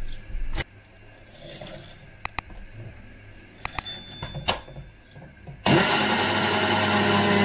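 Handheld immersion (stick) blender switching on about three-quarters of the way in, its motor spinning up with a brief rising whine, then running steadily as it purees spinach in a tall plastic beaker. Before it, a few light clicks and knocks as the leaves are pressed into the beaker.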